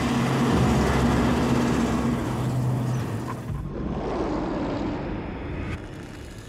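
Military vehicle driving, its engine running with a steady low hum under loud rushing noise. About three and a half seconds in, the sound changes abruptly to a quieter run that fades.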